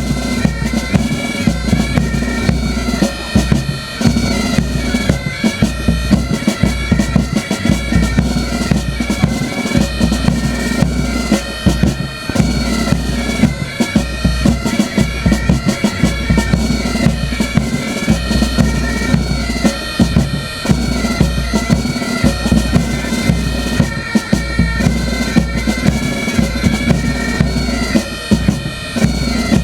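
Bagpipes and drums playing: a shifting melody over a steady drone, with a regular drum beat.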